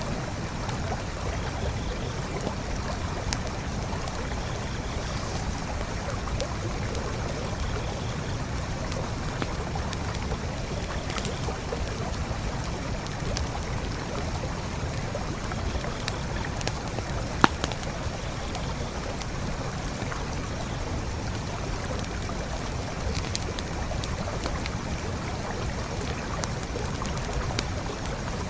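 Forest creek flowing steadily, with a campfire crackling over it in scattered small pops and one sharper pop about two-thirds of the way through.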